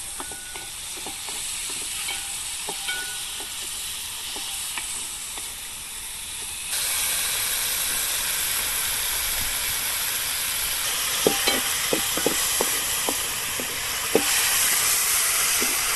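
Chopped tomatoes and onions sizzling in hot coconut oil in a large aluminium pot, the sizzle getting louder about halfway through. A ladle stirs them and knocks against the pot several times past the middle.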